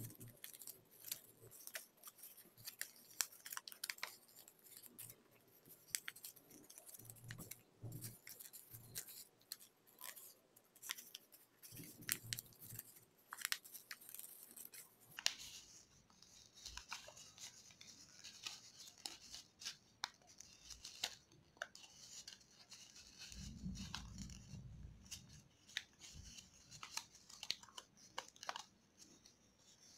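Origami paper being folded and creased by hand: faint rustling with many small crackles and clicks, and a soft sliding rub of paper on paper through the second half. A brief low rumble a little after the middle.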